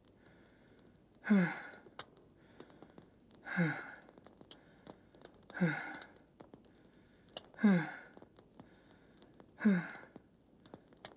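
A man groaning in pain: five short moans, each falling in pitch, about two seconds apart.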